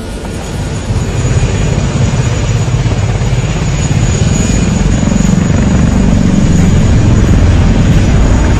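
Multi-rotor drone's propellers buzzing in flight, with a fast chopping rumble and a thin steady high whine. It grows louder about a second in and stops abruptly at the end.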